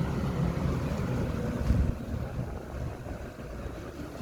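Heavy earthmoving machine's engine running with a low rumble, easing off somewhat about two seconds in.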